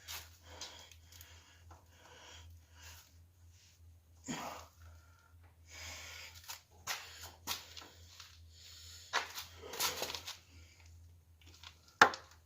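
Rubber fuel hose being twisted and pushed onto its fitting by hand: irregular rubbing and scraping sounds, with a sharp click near the end. A steady low hum runs underneath.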